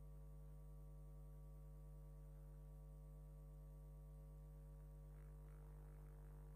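Near silence with a low, steady electrical hum.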